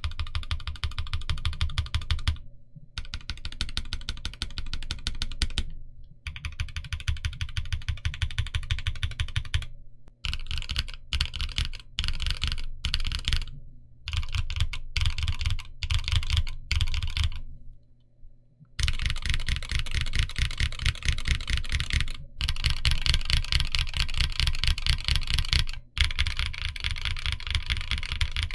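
Fast continuous typing on a Mekanisk Ultramarine mechanical keyboard, a steady stream of key clacks broken by short pauses every few seconds and a longer pause a little past the middle.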